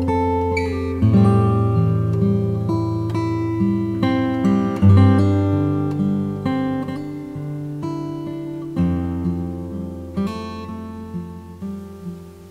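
Acoustic guitar music: plucked notes over held low bass notes, slowly getting quieter toward the end.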